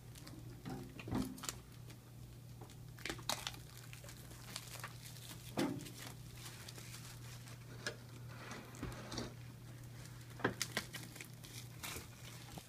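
Toy packaging being cut and opened by hand: scattered plastic crinkling and rustling with light clicks and knocks, over a steady low hum.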